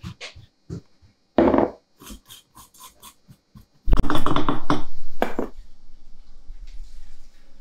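Liquid glaze being poured back through a metal funnel into a plastic bottle, gurgling in short bursts, with clicks and knocks from handling the funnel and a plastic tub. About four seconds in comes a louder stretch of handling noise with a low rumble, lasting about a second and a half.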